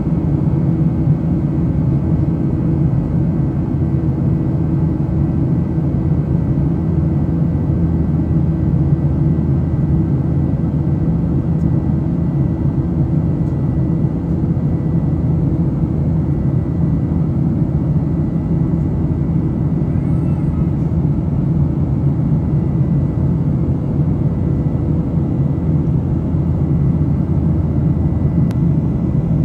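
Steady drone of an airliner's jet engines and airflow heard from inside the cabin in flight: an even, deep rumble with faint steady tones above it.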